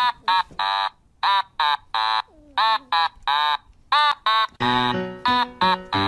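Music: a rhythmic run of short, pitched notes separated by brief gaps, with a bass line coming in about two-thirds of the way through.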